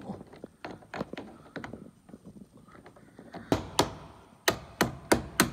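A small hammer tapping a large socket set on a car battery's positive terminal clamp, driving the clamp down onto the post: a run of sharp metallic taps starting about two-thirds of the way in, about three a second. Before them, light clicks and knocks of the clamp being handled.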